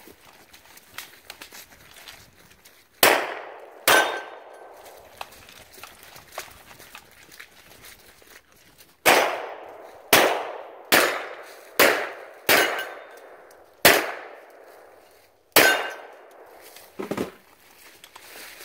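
Gunshots fired one at a time: two about three seconds in, then seven spaced about a second apart from about nine seconds in, each trailing off in an echo. A weaker pair of cracks comes near the end.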